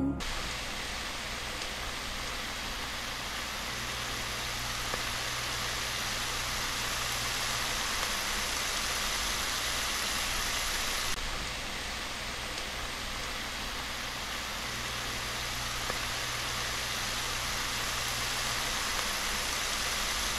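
Steady sizzling of poke greens frying in bacon grease in a pan.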